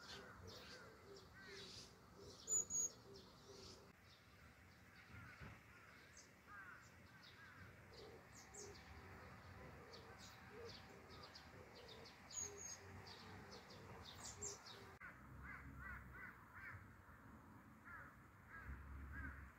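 Faint outdoor ambience of wild birds calling, with many short high chirps. Two louder sharp calls come about two and a half seconds in. Through the first part a lower note repeats two or three times a second, and the background changes abruptly about fifteen seconds in.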